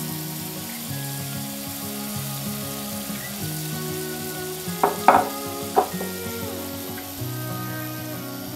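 Grated-potato pancake batter sizzling in hot oil in a frying pan as it is spread out with a silicone spatula, with three sharp knocks about five seconds in.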